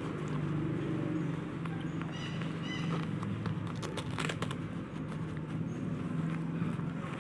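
Steady low hum with two short high chirps about two seconds in, and a brief crackle of a plastic disposable diaper being handled a little after four seconds.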